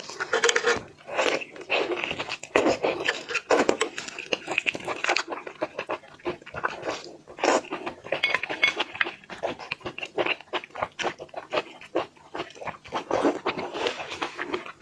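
Close-miked eating sounds: wet sucking, smacking and chewing with many small clicks, as a person eats crab and its roe.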